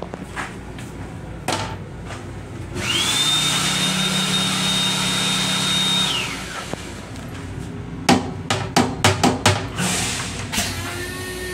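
M7 railcar toilet flushing: a motor whirs up with a high whine and rushing about three seconds in, runs steadily for about three seconds, then winds down. A quick run of knocks follows near the end.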